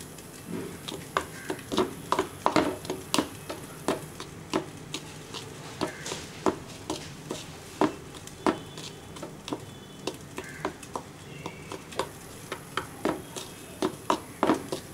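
Metal spoon stirring dry flour in a mixing bowl, with irregular clicks and taps, one to three a second, as the spoon knocks and scrapes against the bowl.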